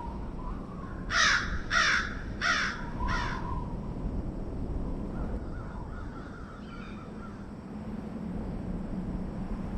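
A bird gives four calls in quick succession, about two-thirds of a second apart, over a steady low background noise.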